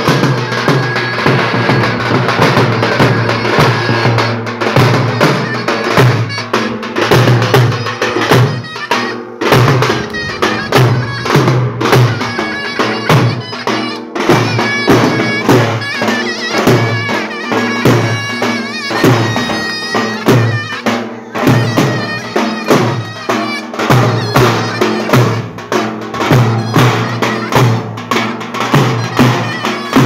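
Davul and zurna playing a folk dance tune: a shrill reed melody held over regular heavy strokes of the big drum.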